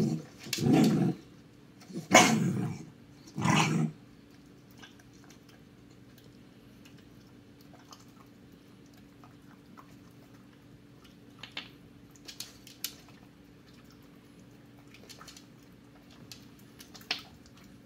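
Small dog making four short, loud growling bursts in the first few seconds, then only faint scattered clicks over a low steady hum.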